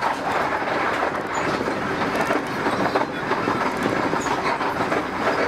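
Steady running noise of a train carriage on the rails, heard from inside the moving car.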